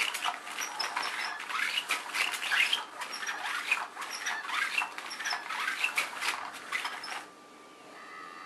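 Cat's Meow electronic cat toy running: its wand sweeps under the nylon cover with a scratchy rustling and scraping, and it stops suddenly about seven seconds in.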